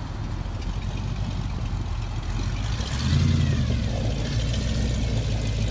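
Engine of a lifted Ford pickup monster truck replica running as it drives on gravel, revving up about three seconds in.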